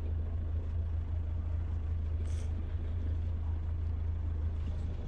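Boat motor idling: a steady low hum, with a brief high hiss about two seconds in.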